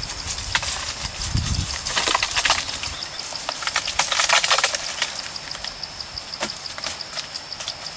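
Loose earth tipped out of a woven basket and sliding into a dug trench, in rustling, rushing bursts; the loudest pour is about four seconds in, with an earlier one about two seconds in.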